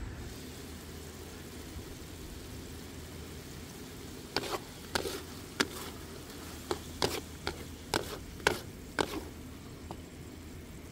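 A spatula stirring chopped chilies and onions in a metal wok over a faint steady sizzle, then scraping and knocking against the pan in a run of about ten sharp clacks starting about four seconds in.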